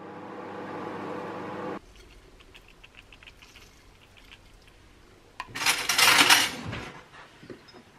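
Microwave oven running with a steady hum that cuts off about two seconds in. Then the light patter of sesame seeds and fried onions being sprinkled onto a plate of loaded fries, with a louder scattering rattle about six seconds in.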